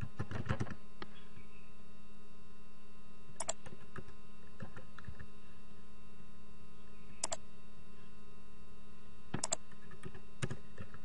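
Computer keyboard keys being typed in short, scattered runs of clicks with pauses between them, over a steady electrical hum.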